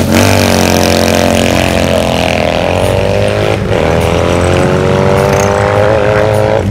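Classic racing sidecar motorcycle's engine accelerating hard away from a standing start. It holds a high, steady note, breaks off briefly about three and a half seconds in as it shifts gear, then climbs in pitch again.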